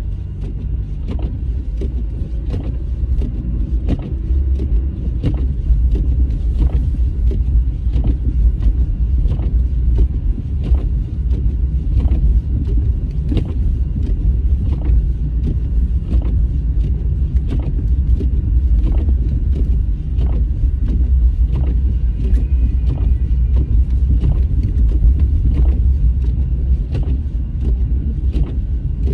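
Car driving, heard from inside the cabin: a steady low road and engine rumble, with faint clicks repeating a little more than once a second.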